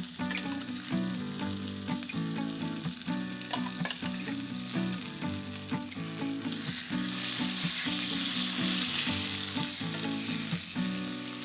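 Elephant foot yam and onions sizzling in oil in a kadai while being mashed and stirred with a ladle, with light clicks and scrapes of the ladle against the pan. The sizzle grows louder about seven seconds in.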